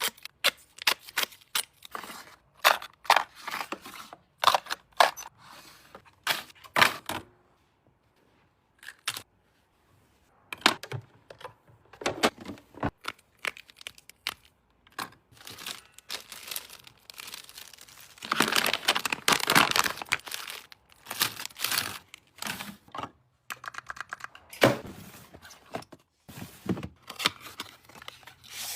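Close-up handling sounds: a run of sharp taps and clicks with crinkling and tearing of packaging. There is a short pause about a quarter of the way in, and a longer stretch of rustling about two-thirds through.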